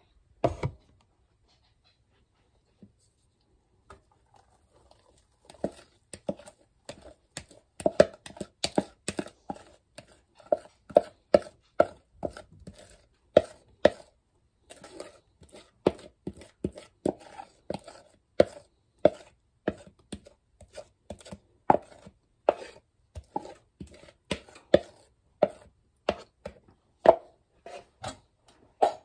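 Batter being scraped and tapped out of a mixing bowl into a loaf pan with a spatula: a long run of irregular knocks and taps, several a second, starting a few seconds in.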